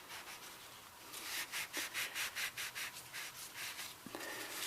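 Hand scrubbing on the metal of an old powder-actuated tool: quick back-and-forth strokes, about four or five a second, fainter in the first second, then steady and brisk, cleaning off grime and carbon buildup.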